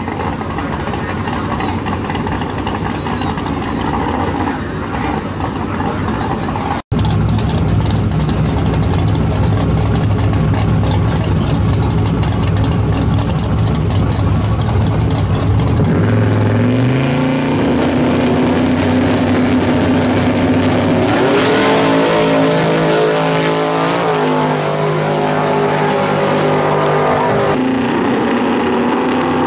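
Drag-race car engines at the starting line: a loud, steady idle for the first half, broken by a momentary dropout about a quarter of the way in. From about halfway the revs climb and then rise and fall repeatedly before settling again near the end.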